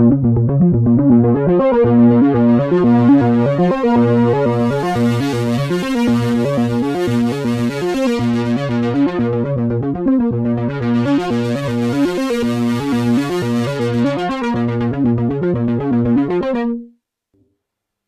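Behringer Poly D analog synthesizer playing a repeating pattern of notes while its filter is turned by hand, the tone brightening and then dulling again twice. The sound cuts off near the end.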